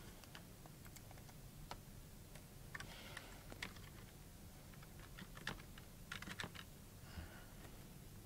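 Faint keystrokes on a computer keyboard, a scattering of irregular clicks with a few quick runs, as an IP address is typed in.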